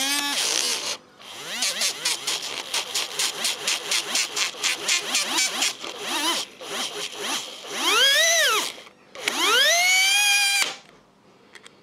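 Small brushed DC can motor running with a screwdriver tip held on its commutator in place of a brush: it stutters in rapid pulses, then twice whines up and back down in pitch, and cuts off suddenly near the end as the motor dies.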